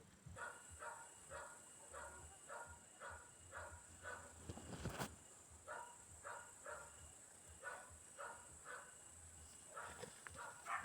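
An animal's short calls, repeated about two or three times a second, with a brief break and a sharp click about halfway through.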